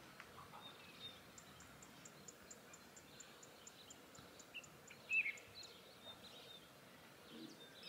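Faint birds chirping in open air, with a high, even ticking at about five a second for a few seconds and one louder chirp about five seconds in.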